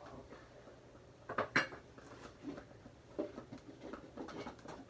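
Plastic cups clattering and knocking as they are handled, a handful of sharp knocks with the loudest about one and a half seconds in.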